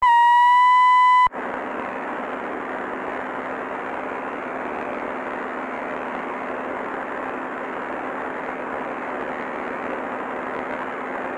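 A loud, steady electronic beep tone, lasting just over a second and cut off sharply, followed by steady static hiss with a faint low hum underneath, like a damaged broadcast recording.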